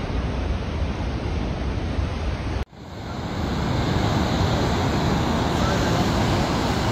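Heavy storm surf breaking and washing ashore, a dense continuous wash of water noise mixed with wind. It cuts out for an instant about two and a half seconds in, then swells back up over a second.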